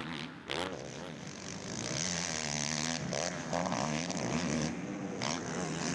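Racing ATV engines running on a dirt supercross track, their pitch rising and falling as the riders work the throttle.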